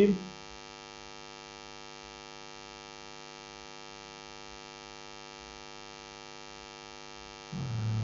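Steady electrical mains hum picked up in the recording, a constant buzz of evenly spaced tones. A spoken word trails off at the start, and a brief low rumble comes near the end.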